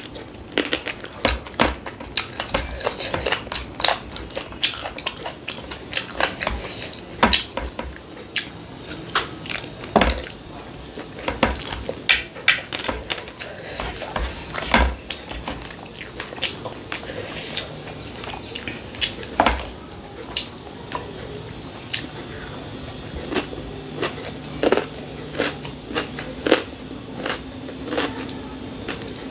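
Close-miked eating: a person chewing and biting food, with irregular sharp clicks and taps against a plate.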